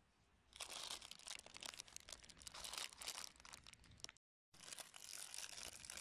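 Clear plastic packaging crinkling and crackling in the hands as a silicone pop-it fidget toy is unwrapped. The sound is faint and briefly cuts out about four seconds in.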